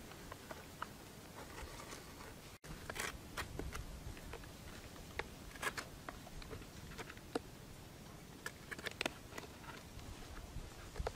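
Scattered light clicks and rustles of nylon line being pulled through holes in a cut rubber tyre cone and handled by hand, with a momentary break in the sound about two and a half seconds in.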